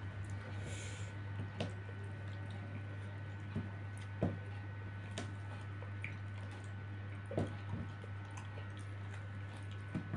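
Mukbang eating sounds: a piece of Madura-style duck being pulled apart by hand and chewed, with scattered short wet smacks and clicks over a steady low hum.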